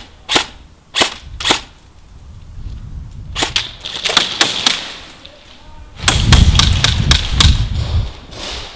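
Airsoft guns firing. Three sharp single shots come within the first two seconds, then scattered shots, then a louder, denser run of shots over a low rumble in the last few seconds.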